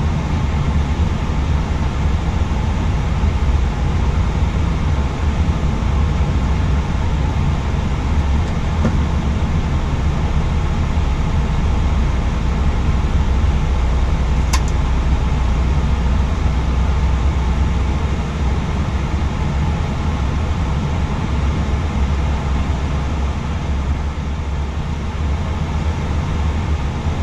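Steady low rumble and hiss of an Airbus A320 cockpit parked at the gate, engines not yet started, with a single sharp click about halfway through.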